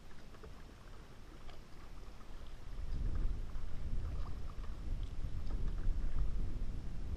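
Kayak paddle strokes: water splashing and dripping off the paddle blades in small scattered splashes. A low rumble against the kayak and microphone grows louder from about three seconds in.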